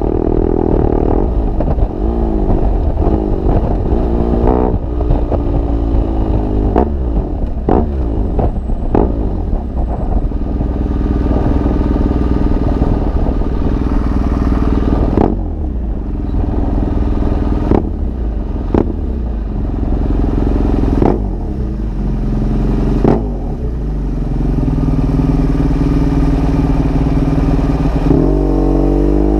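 BMW R1200GS Adventure's boxer twin through an SC Project GP exhaust, running under way with its pitch rising and falling through gear changes. Several sharp cracks break through it.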